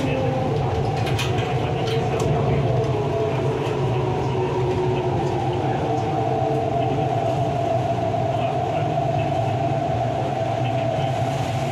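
MTR East Rail line R-Train electric multiple unit running along the track: a steady rumble of wheels on rail with a few faint clicks early on. Over it the traction motors whine, drifting slightly in pitch and then holding one steady tone.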